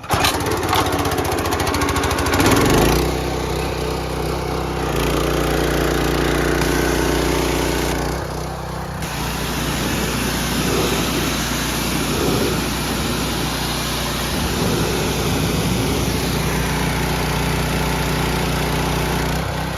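Predator 212cc single-cylinder four-stroke engine on a pressure washer catches on choke with the throttle up, then runs steadily at full throttle. Its level dips briefly about eight seconds in.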